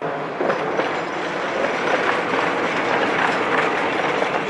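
Loud, steady rattling and clattering mechanical noise that starts abruptly and runs without a break.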